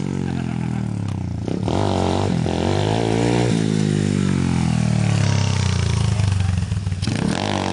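FYM 110cc pit bike's single-cylinder engine revving up and down several times as it rides past close by. In the middle the revs fall away slowly over about two seconds, and there is a quick rev near the end.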